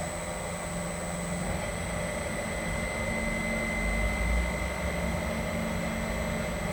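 Electric motor running steadily on a freshly repaired Mitsubishi FR-D740 inverter during a test run: a steady hum with a high-pitched whine over it, swelling slightly about four seconds in.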